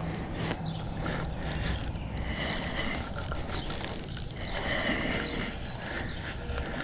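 Spinning reel being cranked, its gears turning as line is wound in on a hooked carp.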